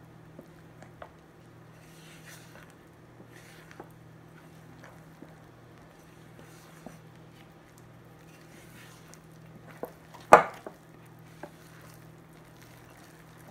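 Spatula stirring flour into a sticky, thickening challah dough in a glass bowl: soft squishing, scraping strokes about once a second with small clicks, and one sharp knock of the spatula against the glass about ten seconds in. A steady low hum runs underneath.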